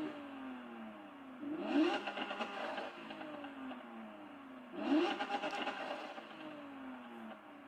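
Lamborghini Aventador's 6.5-litre V12 blipped twice while standing, each rev a sharp jump in pitch followed by a slower fall back toward idle. A rev from just before is still dying away at the start.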